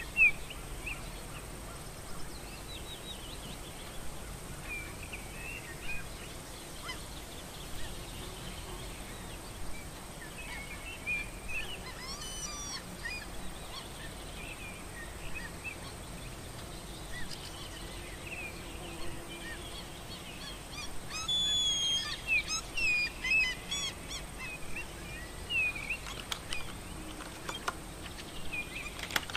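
Birds calling outdoors: scattered short chirps and gliding calls, busier about two-thirds of the way in, over a faint steady hiss.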